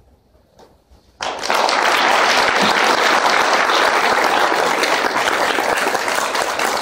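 Brief hush, then about a second in an audience starts applauding all at once, and the clapping keeps on loud and steady.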